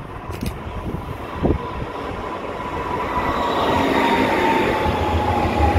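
Dresden tram approaching and passing close by on street tracks, its running noise growing louder as it nears, with a high steady whine that falls slightly in pitch as it goes past.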